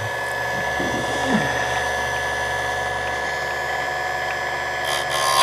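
Buffalo Corp. ECSS electric chainsaw sharpener running, its motor and grinding wheel giving a steady whine. Just before the end the wheel is brought down onto a chain cutter and a harsher grinding begins.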